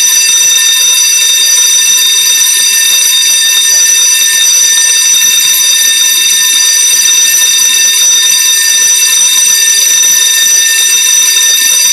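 Electric fire alarm bell ringing loudly and without a break, set off by a malfunction rather than a fire.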